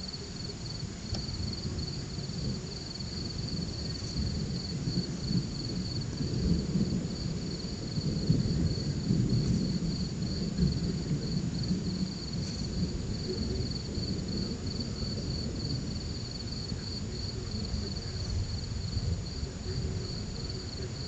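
Crickets chirping in a steady, fast-pulsing high trill. Under them a low rumble of distant thunder swells and fades, loudest about six to eleven seconds in.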